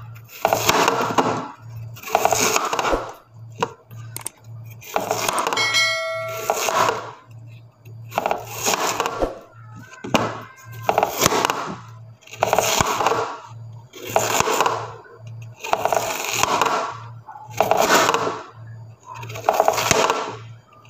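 Large chef's knife slicing through a raw peeled white root vegetable on a wooden cutting board, about one cut every second and a half. Each cut is a short crunching scrape that ends on the board. A brief ringing tone comes about six seconds in.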